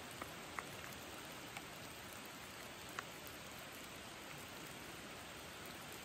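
Rain falling steadily on a forest, with a few single drops ticking close by in the first three seconds.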